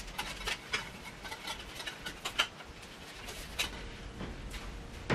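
Handling noises of a paper backdrop roll being slid onto a metal backdrop crossbar: scattered light clicks and soft knocks, with a sharper knock near the end.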